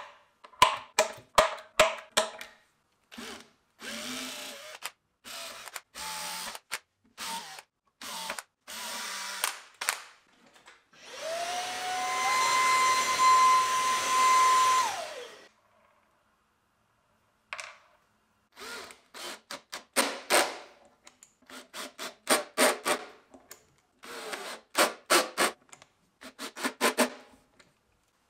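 A small electric drill-driver run in short bursts at the woofer's mounting holes in the wooden cabinet. In the middle a handheld vacuum with a brush nozzle runs for about four seconds, its motor whine rising as it starts and falling as it stops.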